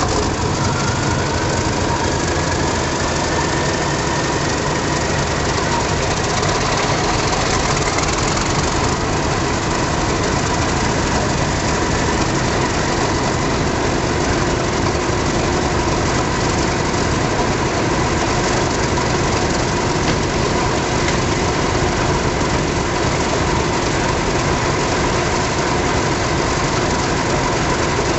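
British Rail Class 31 diesel locomotives' English Electric 12SVT engines idling steadily just after start-up. A whine rises in pitch over the first few seconds and then holds steady above the engine rumble.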